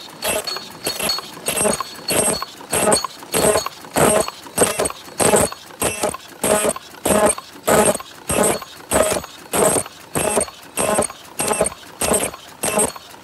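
FP-Q100 open-cam high-speed paper cup making machine running, its strokes beating in a steady, even rhythm of a little under two a second.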